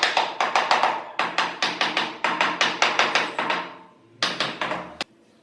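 Rapid, even hammer taps, about four to five a second, consistent with tapping ceramic tiles to bed them. The tapping stops a little over halfway through. A short burst of noise follows, ending in one sharp click.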